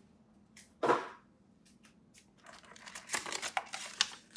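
Paper inserts and cardboard packaging being handled and rustled. There is one short scrape about a second in, then a run of rustles and light taps near the end.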